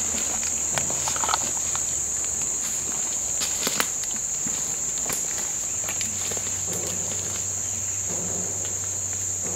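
Steady high-pitched insect chorus, with scattered footsteps crunching through dry leaf litter and pine straw as a man walks away.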